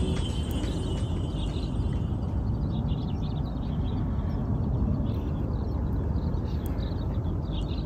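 Riverbank ambience: a steady low rumble of wind and flowing water, with small birds chirping faintly from about three seconds in. The tail of background music fades out in the first two seconds.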